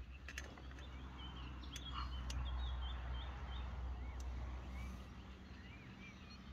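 Small birds chirping in many short calls over a steady low rumble, with a few sharp clicks in the first two seconds.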